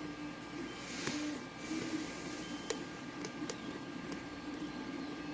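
Lock pick and tension wrench working inside a pin-tumbler lock: two short stretches of high scraping hiss, then a few small sharp metallic clicks, over a steady low hum.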